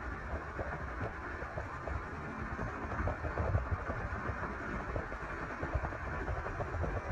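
Four-wheel-drive tractor engine running, a steady low rumble.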